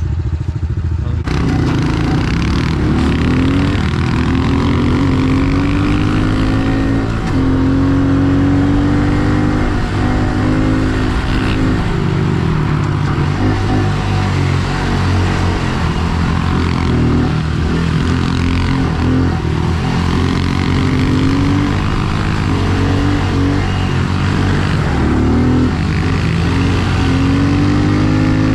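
A Honda CRF110 pit bike's small single-cylinder four-stroke engine is revving hard under riding. Its pitch climbs, drops and climbs again, over and over, as the rider works the throttle and gears.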